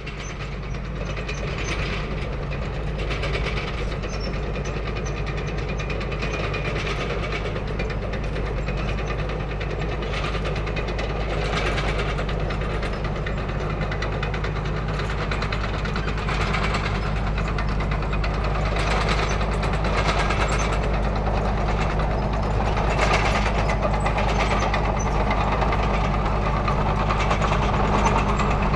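Tank on the move: a heavy engine running steadily under irregular clanks of the tracks. The sound fades in over about the first second.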